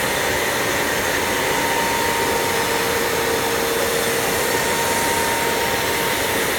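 CNC router spindle running steadily while milling 10 mm expanded PVC sheet: a steady rushing noise with a thin whine that comes and goes.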